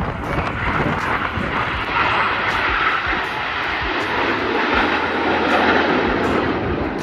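Formation of Italian Aermacchi MB-339 jet trainers passing overhead: a loud, steady jet rush that swells to its loudest near the end.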